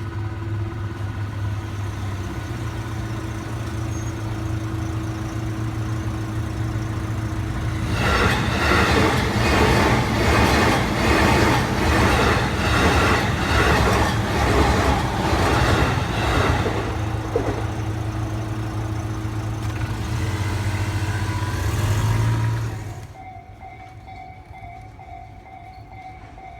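Electric commuter train running through a level crossing. A steady rumble gives way, about eight seconds in, to wheels clattering rhythmically over the rail joints for some fifteen seconds. The train noise drops away suddenly near the end.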